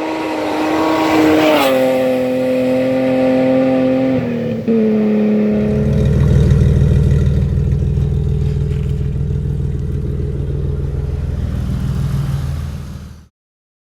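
A car engine running hard, its pitch dropping in a few sudden steps, then a deep low rumble from about halfway. It cuts off shortly before the end.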